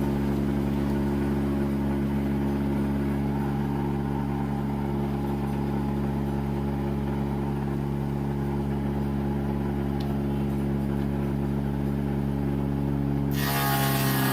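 Woodworking planer machine fitted with a molding die bit, its motor running at a steady speed with an even hum. Near the end a harsher, hissing sound joins in.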